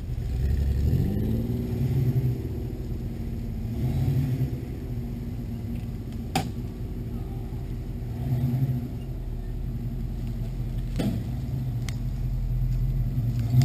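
Full-size pickup truck engine revving up, then running in repeated surges of throttle as the truck crawls over rough ground. Two sharp snaps, one about halfway through and one a few seconds later.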